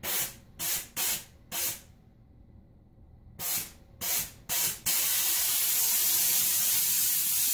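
McCulloch MC1375 steam cleaner's handheld steam gun hissing out steam in short bursts, four quick ones, then after a pause three more, before settling into a continuous jet about five seconds in.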